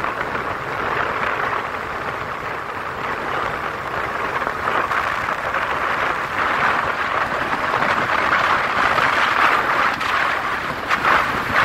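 Wind rushing over a phone's microphone held out of a moving car's window, mixed with tyre and road noise, steady and loud, with a few sharper gusts of buffeting near the end.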